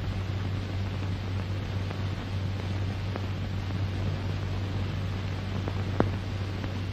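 Steady hiss with a low mains-like hum from an old recording's soundtrack, with a couple of faint clicks, one about three seconds in and one about six seconds in.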